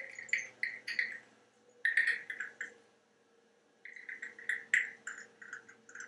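African grey parrot making a rapid series of short, sharp clicks, in three runs with brief pauses between them.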